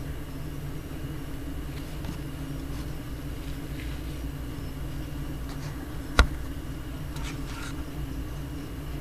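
A steady low hum, with one sharp click a little after six seconds in and a few faint rustles.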